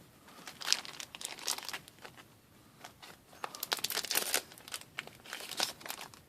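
A trading-card booster pack's foil wrapper being torn open and crinkled, in irregular bursts of crackling, loudest in the middle.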